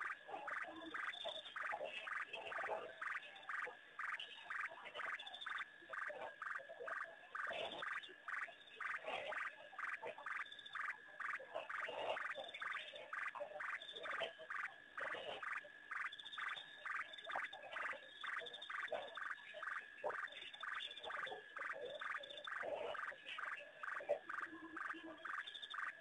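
A dense, continuous chorus of frogs calling: rapid clicking pulses over a steady high note.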